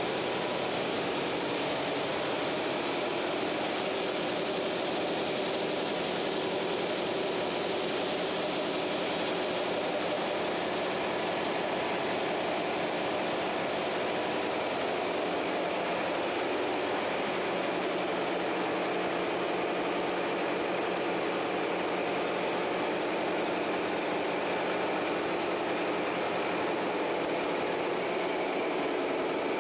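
Large multi-cylinder diesel engine of a diesel-electric fireboat running steadily in its engine room, a constant, even drone that does not change pace.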